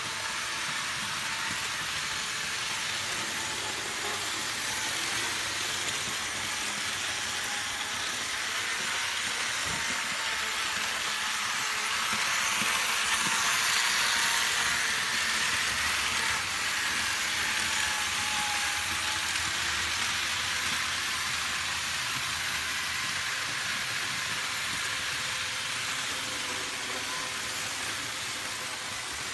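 Märklin 3054 BR 103 HO model electric locomotive running on C-track pulling a rake of passenger cars: a steady whirring hiss of the motor and wheels on the rails. It grows louder about halfway through as the train passes close, then eases off.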